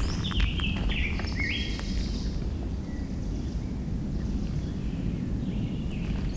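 Woodland dawn ambience: birds singing in short repeated chirping phrases through the first two seconds or so, then only faintly, over a steady low rumble, with a few sharp snaps near the start.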